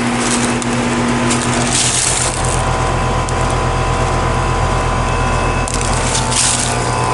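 Outdoor air-conditioning condensing unit running in cool mode, its compressor and condenser fan giving a steady hum. A few brief rustling noises come over it now and then.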